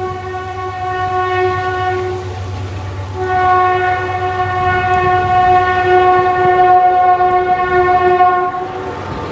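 Train horn sounding two long blasts: the first ends about two seconds in, and after a short break the second sounds for about five seconds, over the low rumble of the train.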